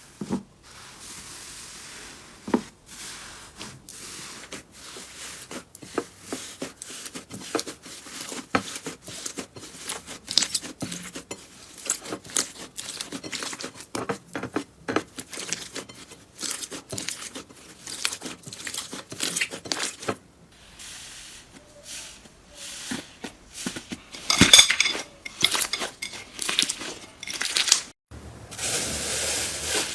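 Slime being squeezed and poked by hand, with dense crackling clicks. A louder cluster of crackles comes near the end, then a softer, hissier slime sound takes over.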